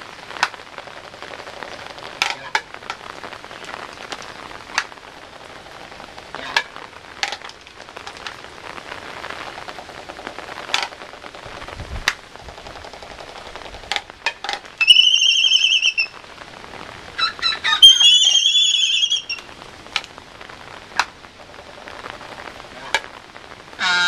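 Laysan albatross pair calling during their courtship dance in the rain: two loud, wavering whistling calls about halfway through, over a steady patter of rain with scattered sharp clicks. A moaning sky call begins at the very end.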